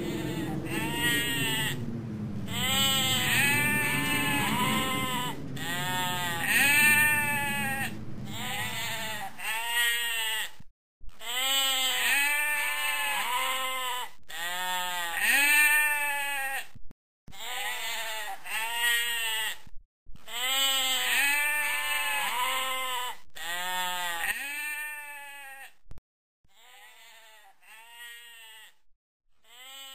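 A flock of sheep bleating over and over, the calls overlapping in quick succession, with a low steady rumble under them for the first third. Near the end the bleats grow fainter and sparser.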